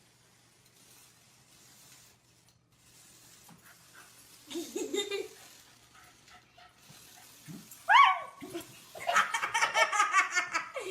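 A dog whining and yelping in short pitched cries after a few seconds of near silence, with one sharply rising yelp and a quick run of high cries near the end.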